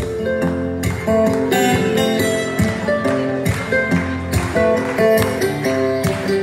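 Acoustic guitar strummed steadily while a second guitar picks a melody of single ringing notes, an instrumental passage with no singing.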